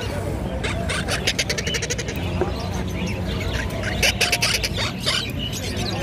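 Parakeets (conures) calling with harsh, rapid chattering screeches in two bouts, the first about a second in and the second around four seconds in, over a steady low background of street noise.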